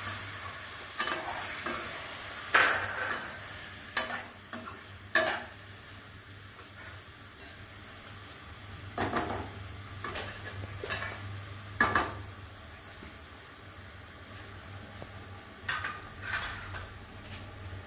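Perforated steel slotted spoon stirring vegetables in a stainless steel kadai, with irregular sharp clinks and scrapes of metal on metal over a gentle sizzle from the pan, and a steady low hum underneath.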